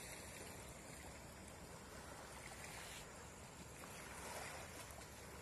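Faint, steady ambience of a calm beach: a soft, even hiss of gentle sea at the shoreline.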